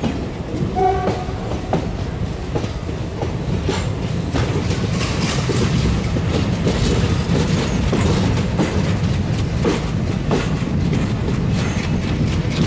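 Express train coaches running on the track: a steady low rumble with the clickety-clack of wheels over rail joints, growing louder over the first few seconds.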